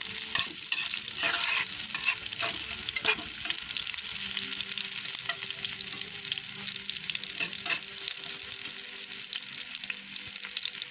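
Chopped garlic, onion and red bell pepper sizzling steadily in hot oil in a pan, with a utensil clicking and scraping against the pan as they are stirred, mostly in the first few seconds and once more past the middle.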